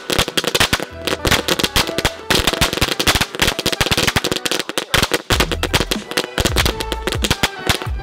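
A string of firecrackers going off in rapid, crackling succession inside a watermelon, over background music.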